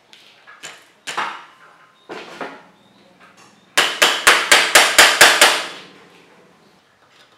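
A hammer tapping a chrome bar-end plug into the end of a cork-taped handlebar: about eight quick, sharp taps in a row, a few a second, starting a little past halfway. Before them come a few scattered knocks and scrapes as the plug is handled.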